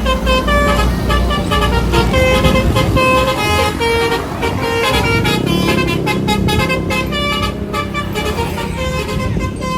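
Bus 'telolet' multi-tone horn playing a quick melody of short notes over the bus engine's low rumble.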